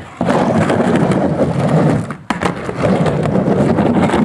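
Skateboard wheels rolling on a plywood halfpipe, a steady loud rumble that breaks briefly twice, with a sharp clack a little over two seconds in.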